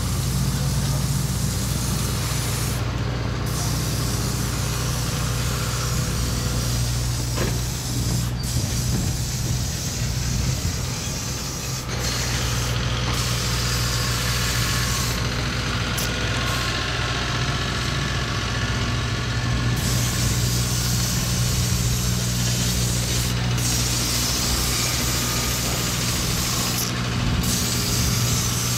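Steady low hum of running machinery, with a hiss over it that swells and fades.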